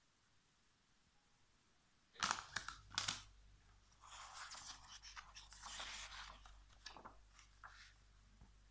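Pages of a glossy paper magazine being handled and turned: two sharp paper snaps a couple of seconds in, then rustling as the pages are leafed through, with a few lighter flicks near the end.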